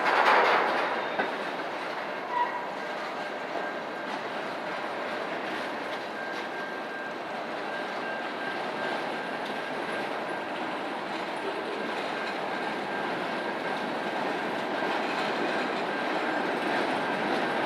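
Train rolling past, a steady rumble of wheels on rail with a thin, steady high ringing tone from the wheels or rails. It swells loudly right at the start, and a single sharp knock comes about two and a half seconds in.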